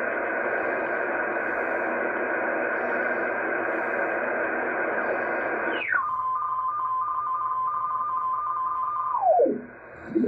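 Kenwood R-5000 shortwave receiver in lower sideband giving a steady band-limited hiss of static. About six seconds in, a whistle drops sharply in pitch as the dial tunes onto a signal, holds as a steady tone, then slides down low near the end as the tuning moves on.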